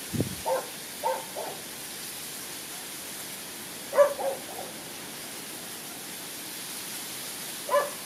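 A dog barking in short yaps, in three clusters of two or three, over a steady hiss. A brief low thump comes right at the start.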